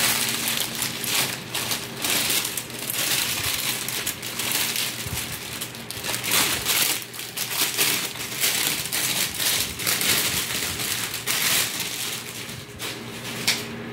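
Clear plastic clothing bags crinkling and rustling as they are handled, in an uneven run of crackles.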